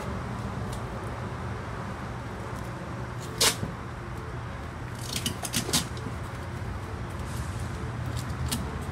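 Tape being handled and torn off the roll: a sharp snap about three and a half seconds in, then a cluster of short rips and clicks around five to six seconds, over a steady low hum.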